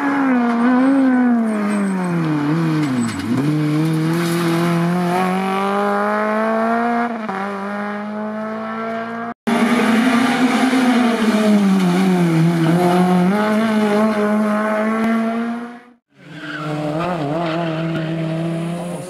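Honda Civic Type-R EP3 rally car's 2.0-litre four-cylinder engine revving hard, its pitch falling steeply about three seconds in as the car slows, then climbing again; the sound cuts off abruptly twice as the footage changes shot.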